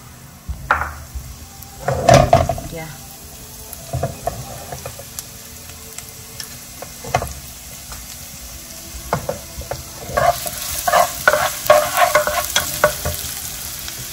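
Minced garlic frying in hot oil in a pan: sporadic pops and crackles, the loudest about two seconds in. From about ten seconds in the sizzle grows denser and louder, and a ladle stirs the garlic near the end.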